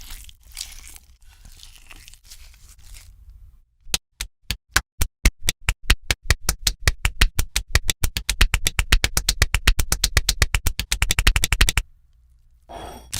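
Soft scraping and crinkling, then a long run of sharp, even knocks starting about four seconds in. The knocks speed up from about two a second to a fast roll and cut off suddenly near the end.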